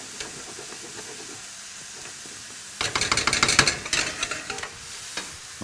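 A whisk stirring thick polenta in a stainless steel pan, with a burst of fast scraping and tapping against the pan from about three seconds in. A steady sizzle of frying sits underneath.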